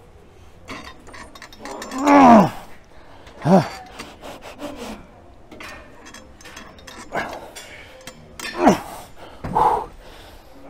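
A man grunting with effort while pushing a set on a chest fly machine toward failure: four loud, strained grunts, about two and three and a half seconds in and twice near the end, with faint clicks between them.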